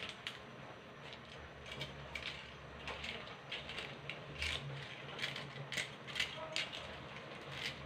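Metal tongs clicking and scraping against a large wok while tossing noodles, in irregular short clicks, over a low steady hum.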